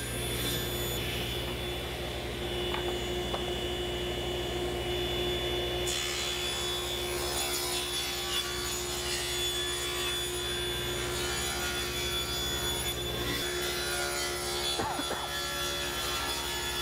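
Table saw running, cutting a taper along a kerfed board fed through a tapering jig. The steady hum of the saw carries throughout, and the hissing noise of the blade in the wood rises about six seconds in and eases off near thirteen seconds.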